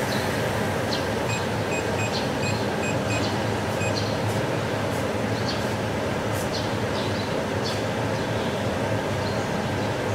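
Handheld fiber laser welding machine running with a steady hum from its cooling system. About a second in, its touchscreen gives a quick run of about six short beeps as keys are pressed, and there are a few light taps.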